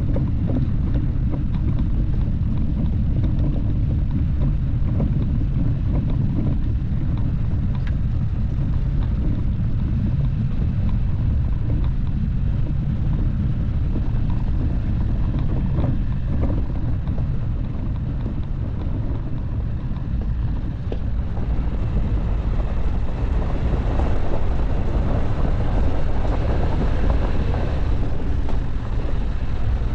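Dacia Duster driving off-road: a steady, loud rumble of engine and tyre noise, with wind on the microphone. The noise grows louder and fuller for several seconds in the second half.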